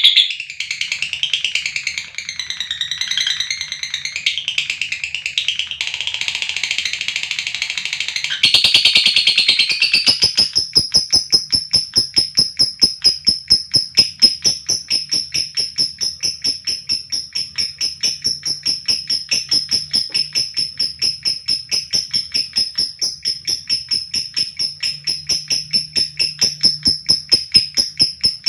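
Lovebird chattering, then from about ten seconds in a long unbroken run of rapid, shrill, evenly repeated high notes on one pitch: the long 'ngekek' trill that lovebird keepers prize.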